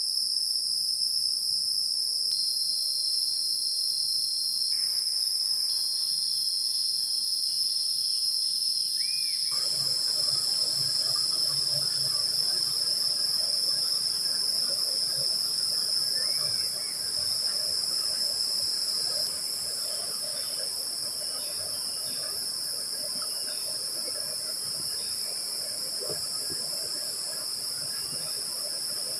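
Steady, high-pitched chorus of forest insects. About ten seconds in, the low rushing of a shallow rocky stream joins it.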